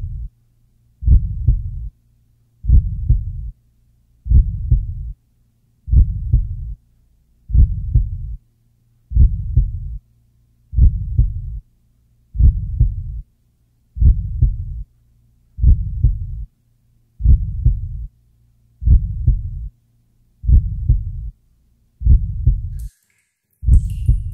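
Slow, heavy heartbeat sound effect: a low double thump about every second and a half, with a faint low hum between beats.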